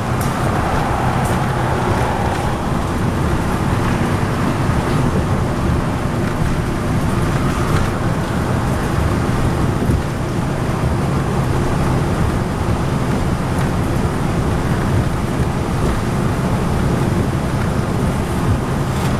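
Inside a 2010 NABI 40-SFW transit bus moving at highway speed: the steady drone of its Cummins ISL9 diesel engine and drivetrain mixed with road and tyre noise.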